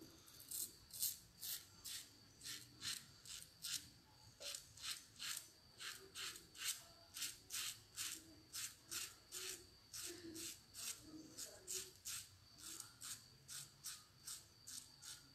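A Razorine replaceable-blade straight razor with a Euromax blade scraping through lathered stubble in short, quick strokes, about two to three a second, faint.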